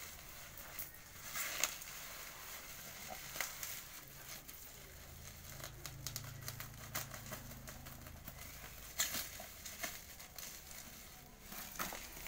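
Plastic bubble wrap crinkling and crackling as scissors snip and cut through it. The sound comes in short, irregular spells of crackles, loudest a little over a second in and again about nine seconds in.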